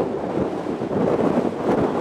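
Strong wind buffeting the microphone: a steady, dense rushing noise with no pitched sound in it.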